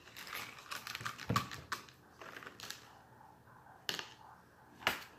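Painting supplies being handled on a tabletop: rustling and light tapping for about three seconds, then two sharp clicks about a second apart near the end.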